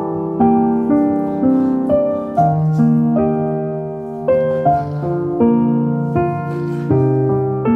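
Background piano music: a gentle melody of single notes and chords struck about every half second.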